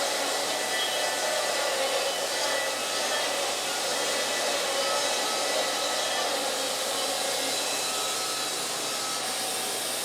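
Wood-Mizer LT50 band sawmill running with a steady, even noise.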